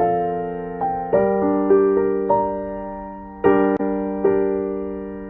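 Background piano music: slow chords struck roughly once a second, each left to ring and fade.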